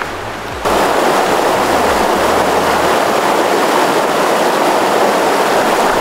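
Mountain stream rushing and splashing over boulders in shallow rapids: a steady, loud rush of water that jumps up abruptly about half a second in, after a softer rush of water at the start.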